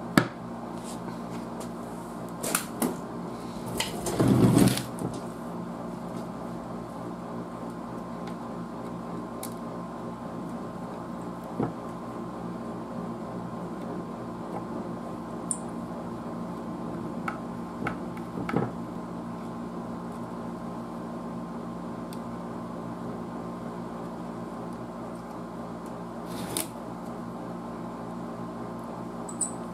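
Scattered small clicks and knocks of hand work on a wooden radio cabinet, with the lid set down and small screws driven with a hand screwdriver, over a steady background hum. The loudest sound is a brief rustling scrape about four seconds in.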